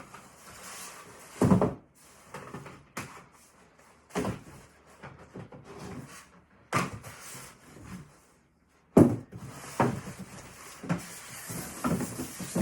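Table saw stand legs being pulled out of their shipping box: four sharp knocks and clunks a couple of seconds apart as the legs hit each other and the box, with packaging rustling between them and smaller clatters near the end.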